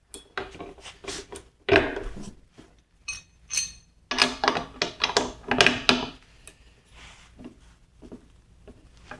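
Metal tools being handled: a steel socket and a torque bar clinking and clattering as they are fitted together, in scattered bursts of sharp clinks.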